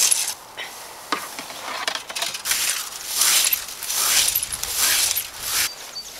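Leaf rake dragged through dry, dead grass: a series of rustling, scratchy strokes about a second apart.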